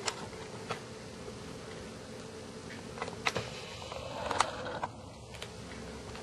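Domestic cat purring, a steady low buzz, with a few light clicks and taps of handling.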